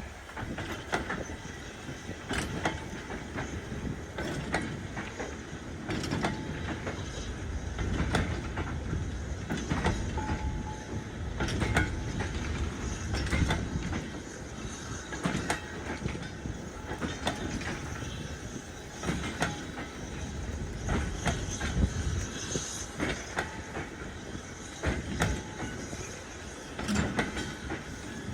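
Train running along jointed track: a steady rumble with many sharp clicks of wheels passing over rail joints.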